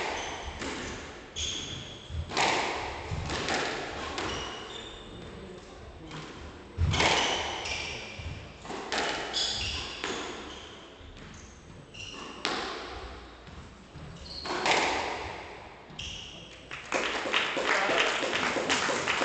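Squash rally: the ball cracking off rackets and the court walls with echoing thuds at an uneven pace, and court shoes squeaking on the wooden floor between shots. The hits stop about 17 s in, and a denser, steadier noise follows near the end.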